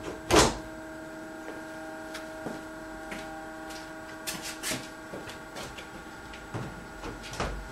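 A single loud thump about half a second in as the Lotus Elan S2's glass-fibre bonnet is pushed down onto its catch clips, then a steady electrical hum with a few faint knocks.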